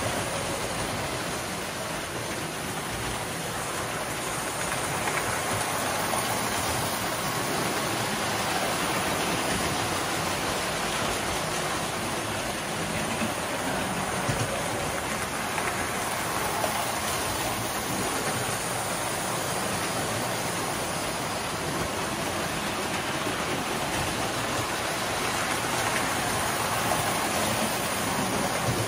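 Several toy electric trains running on three-rail tubular metal track: a steady rolling whir of wheels and motors, with a few short clicks.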